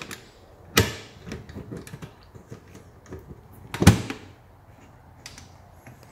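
Metal lid latch of an aluminum motorcycle pannier being worked by hand to close the case: two loud clacks, about a second in and about four seconds in, with lighter clicks and rattles between.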